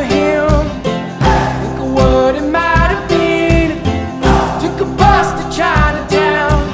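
Background music: an acoustic folk-pop song with guitar, a steady drum beat about once a second, and singing.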